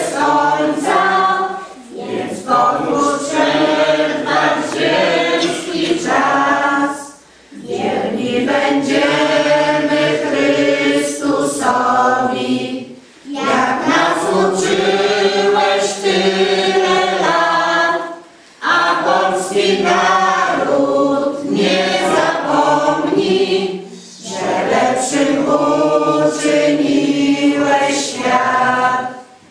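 A choir of mixed voices singing together, in sung phrases broken by short pauses about every five to six seconds.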